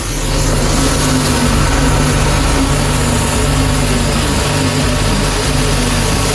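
Kärcher K3.99 electric pressure washer running steadily after repair: the motor and pump hum with a steady hiss. It now starts and runs, with its faulty water seals, missing oil and bad power cables replaced.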